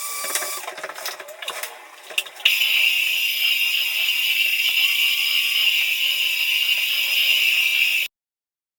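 Floor sanding machine running: rattling and clattering for the first couple of seconds, then a steady hiss that cuts off suddenly near the end.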